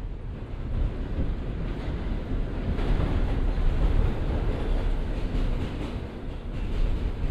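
New York City subway train on the 1 line running between stations, heard from inside the car: a steady low rumble that grows louder around the middle and eases a little toward the end.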